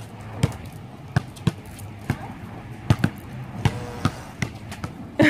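A ball bouncing again and again, sharp thuds at uneven intervals, about two a second.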